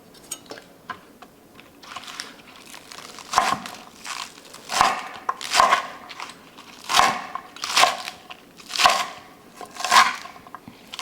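Chopped scallions being pushed into a bowl of shredded cabbage: a run of short crisp rustling swishes, about one a second, starting a few seconds in.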